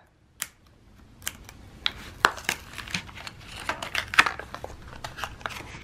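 A toy cockroach's plastic blister pack being pried open by hand: a scattered run of sharp clicks and crackles of stiff plastic, loudest about two and four seconds in.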